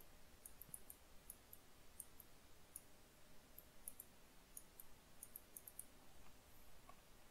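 Near silence with faint, irregular clicks of a stylus tapping on a tablet screen while words are handwritten, about twenty small ticks that stop about six seconds in.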